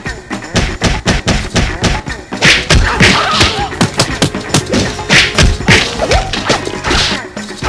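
Staged fistfight: a rapid series of punch thuds and whacks over music, with the loudest hits about two and a half, five and seven seconds in.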